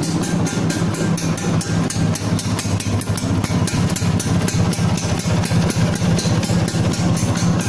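Freshly repaired Vespa Exclusive scooter's single-cylinder two-stroke engine idling steadily, with a fast, even ticking over the engine note.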